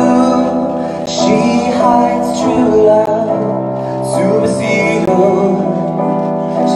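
A solo voice singing live through a microphone over electronic keyboard accompaniment in a piano sound, with held chords under the sung melody.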